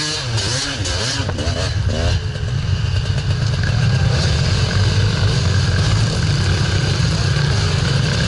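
Dirt bike engines: a throttle blipped up and down a few times over the first two seconds, then a louder, dense engine sound that holds steady, with several bikes running close together.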